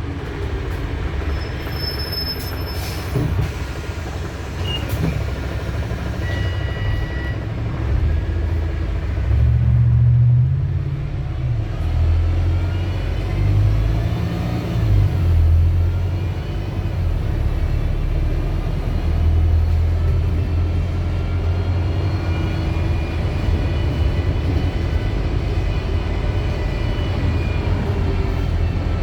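Wright StreetDeck double-decker bus's Mercedes-Benz OM934 four-cylinder diesel running under way. It surges in pitch and level a few times as it pulls, with a faint whine climbing along with it.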